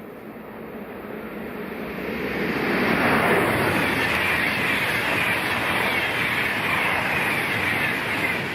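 Swiss passenger train passing at high speed on a line rated for 200 km/h. A rushing noise builds over about three seconds, drops in pitch as the front goes by, then the carriages rush past steadily, easing a little near the end.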